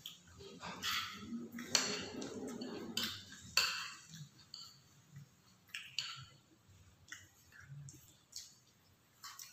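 Spoons and forks clinking and scraping on ceramic plates, with chewing: a scattering of short, irregular clinks, the sharpest a little under two seconds in and about three and a half seconds in.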